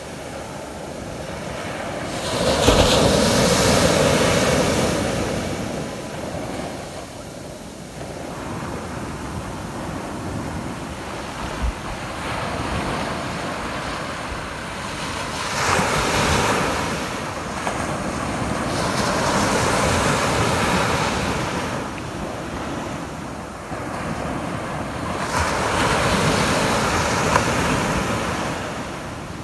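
Ocean surf breaking and washing up a sandy beach, rising and falling in slow surges as each wave comes in, the loudest about three seconds in.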